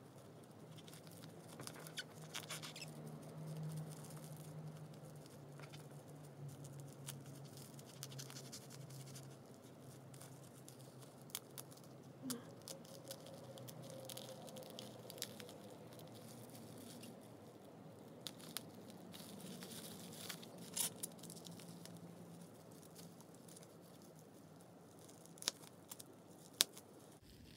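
Faint scratching, crinkling and tearing of plastic bubble wrap and packing tape as a blunt kitchen knife picks and cuts through it, with scattered sharp clicks and snaps, the loudest a few near the middle and near the end.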